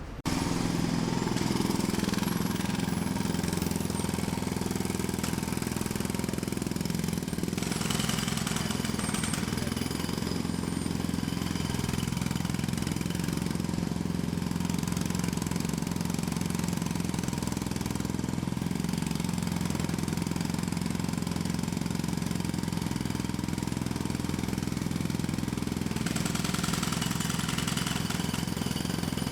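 Jackhammer running steadily, cutting in abruptly just after the start and continuing without a break.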